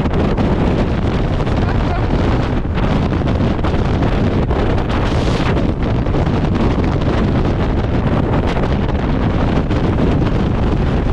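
Gale-force mountain wind, over 35 m/s, buffeting the microphone: a loud, steady rush of wind noise, heaviest in the low end.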